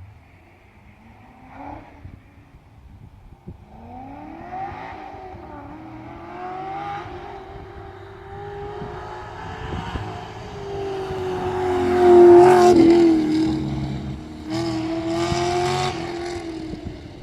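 Chevrolet Camaro Z/28's V8 engine running hard under acceleration. Its pitch climbs about four seconds in, then holds high as it grows louder, peaking about three-quarters of the way through. After a brief lift it pulls again, then fades near the end.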